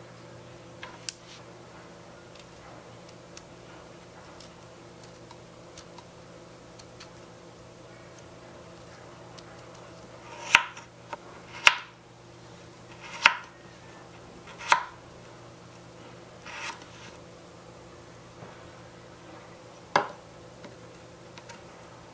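Tiny knife cutting a small potato on a miniature wooden chopping board: four sharp chops about a second and a half apart, then two more, more spaced out. Before them come only faint small ticks of handling.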